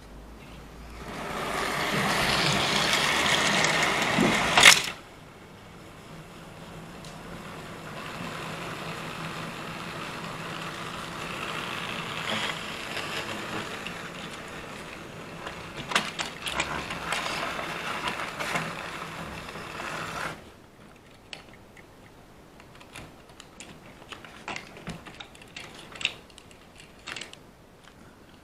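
Small electric motor and gears of a model locomotive whirring on the track: loud for the first few seconds, ending in a sharp click, then a steadier run that cuts off suddenly about twenty seconds in. After that come light clicks and knocks of model rolling stock being handled on the rails.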